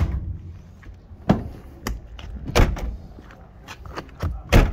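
Rear load doors of a 1991 Ford Transit van being handled and shut: a series of metal clunks and thuds about a second apart, the loudest near the end.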